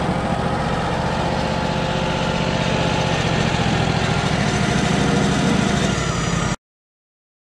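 Wood-Mizer LT35 portable sawmill's engine running steadily, getting a little louder about halfway, then the sound cuts off abruptly near the end.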